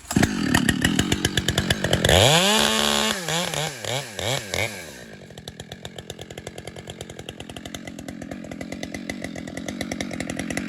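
Two-stroke chainsaw: running from the start, revved up to full throttle about two seconds in, throttle opened and closed a few times, then settling to a steady idle about five seconds in.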